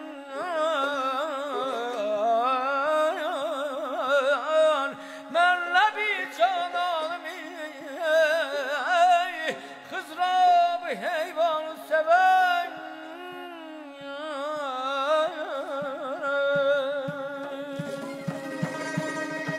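Azerbaijani mugham singing: a voice in wordless, quavering melismatic runs over a steady held instrumental drone. Light frame-drum (qaval) strikes come in near the end.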